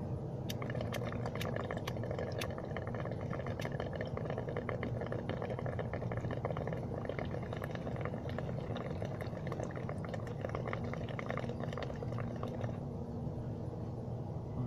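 Water bubbling inside a wooden bong as a long hit is drawn through it: a rapid, continuous gurgle that stops shortly before the end. A steady low hum runs underneath.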